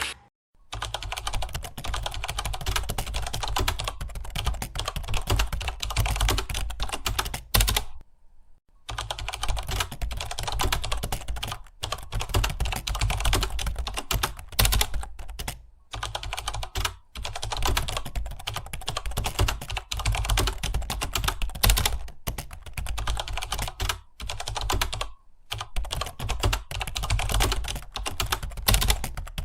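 Fast, continuous typing on a computer keyboard, with a steady rapid patter of keystrokes. It breaks for about a second roughly eight seconds in and again briefly later.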